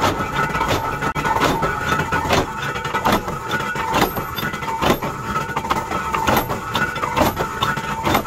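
Flywheel-driven mechanical power press working steel pin blanks: sharp metallic strikes come roughly once a second over the continuous running noise of the press drive.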